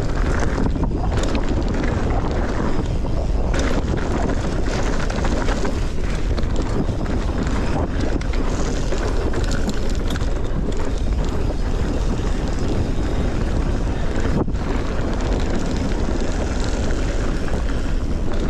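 Wind buffeting the microphone: a steady, fairly loud rushing noise with a heavy low rumble and no distinct separate events.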